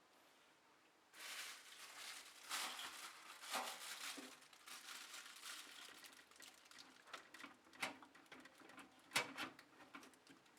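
Rustling and crinkling from hands handling packaging, with a few sharp clicks and taps, starting about a second in.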